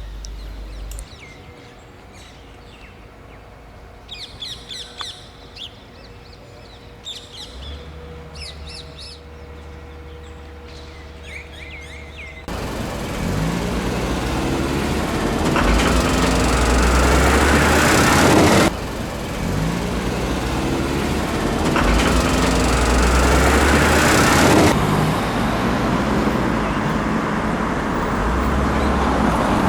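Birds chirping in short high calls over a quiet background. About twelve seconds in, an abrupt cut to loud street traffic, with vehicles passing one after another.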